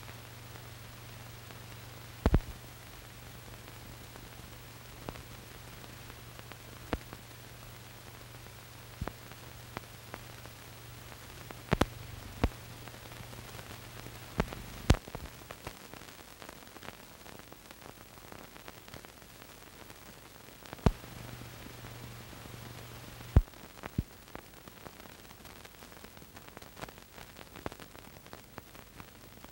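Surface noise of an old film soundtrack: a steady hiss under a low hum that cuts out and comes back, with scattered sharp clicks and pops.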